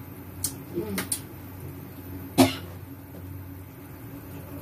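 A person tasting hot cooking broth: a few small clicks and a short falling hum, then one sharp cough-like burst from the throat about two and a half seconds in, the loudest sound. A steady low hum runs underneath.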